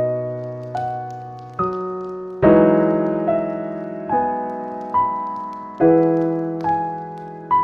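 Slow, calm solo piano: single melody notes over held chords, struck about once a second and each ringing out and fading. The fullest chord comes about two and a half seconds in.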